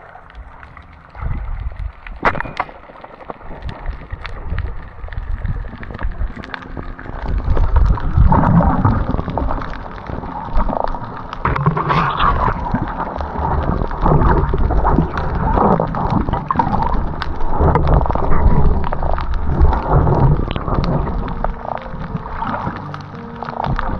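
Rough sea water sloshing and gurgling close to the microphone in irregular surges, with a low rumble and scattered knocks and clicks.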